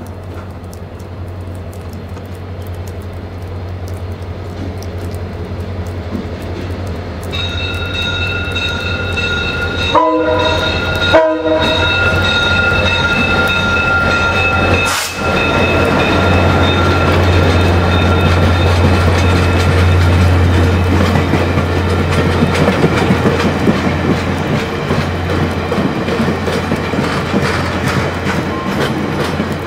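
VIA Rail F40PH-2 diesel locomotive and its stainless-steel passenger coaches passing close by, the engine's drone building as it approaches. A steady high tone joins in about seven seconds in as the locomotive draws level. After that the wheels rumble and clatter over the rails as the coaches roll past.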